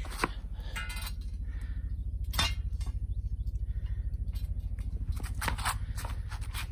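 Scattered sharp metallic clinks and knocks from work on a bent steel gate: one about two and a half seconds in, a quick pair near the end. Under them runs a steady low throbbing hum.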